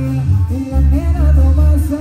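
Live Mexican band music at full volume: heavy low bass notes changing every half second or so under a melody line, with no words sung.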